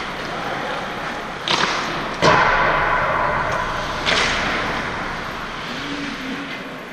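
Echoing ice-rink sound of a hockey game: several sharp knocks ring through the arena, the loudest about two seconds in, over a steady hiss of skates on ice.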